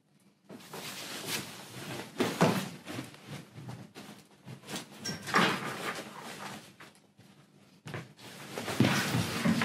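Actors scuffling and moving about on a stage: feet shuffling and scraping, and bodies and clothes rubbing as they grapple. The noise comes in several loud surges, starting about half a second in.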